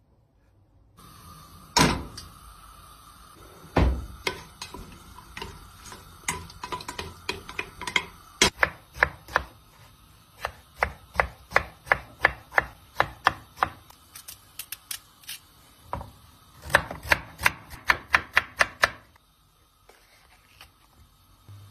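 Kitchen knife chopping potatoes and a red bell pepper on a wooden cutting board: two heavy chops in the first few seconds, then a long run of sharp, even chops about two a second, which stop a couple of seconds before the end.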